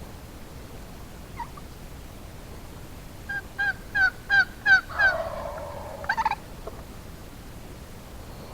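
Wild turkey yelping: a series of about six short yelps, roughly three a second, each louder than the last. A rougher, raspy call runs on for about a second after them, ending in a short loud burst.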